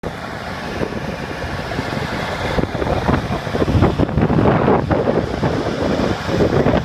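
Wind buffeting the microphone in irregular gusts over a steady low rumble.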